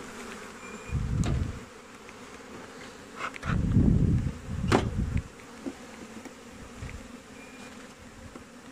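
Honeybees buzzing steadily around an open hive, a dense hum from the many bees on the frames and excluder. Two louder low muffled rushes come about a second in and again around the middle, with a few sharp clicks.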